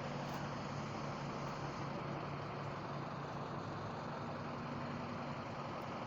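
A large engine running steadily, with an even low hum and no changes in speed.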